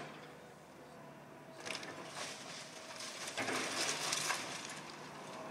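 Old wooden house being torn down by an excavator: timber and debris crunching and cracking in two bursts, about a second and a half in and, louder and longer, about three and a half seconds in, over a steady low hum from the machine.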